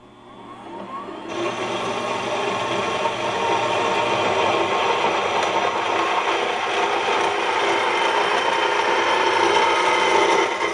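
Trajan 125 metal-cutting band saw running, its blade cutting through thin-walled stainless steel sanitary tubing; a steady grinding noise that fades in over the first second or two.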